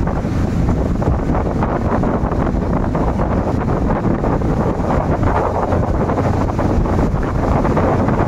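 Steady wind noise buffeting the microphone on a speedboat under way, mixed with its Mercury outboard motor running at speed and the rush of the churning wake.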